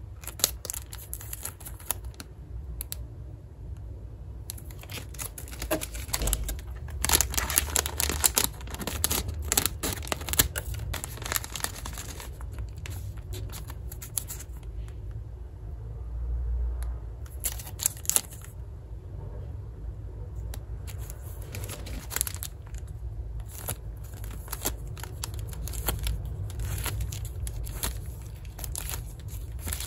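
Plastic wafer wrappers crinkling and tearing as packs are opened and handled, in irregular crackles that are busiest about seven to twelve seconds in, over a low steady hum.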